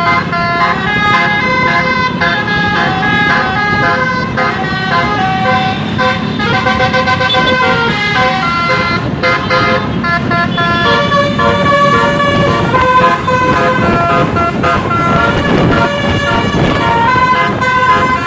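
Basuri telolet horn, an Indonesian multi-tone electric horn, playing a melody in quick stepped notes, with a low rumble underneath.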